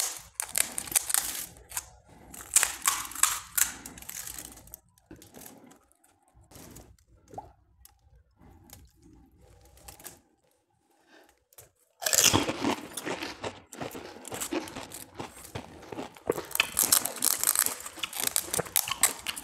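Crisp, hollow panipuri shells cracking as they are poked open, then after a quieter stretch, loud crunching and chewing of filled panipuri from about twelve seconds in.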